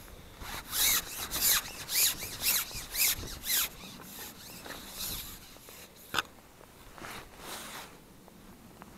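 Long carbon fishing pole shipped back hand over hand, about seven rubbing slides at roughly two a second as it is pulled through the hands and over the pole rest, then a single sharp click about six seconds in and a last fainter rub.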